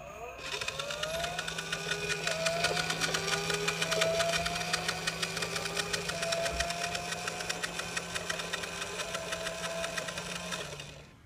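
Fast Lane Light & Sound toy car's try-me engine sound effect played through its built-in speaker: a fast, even engine rattle with a steady hum, the pitch rising in several slow revving glides, stopping near the end.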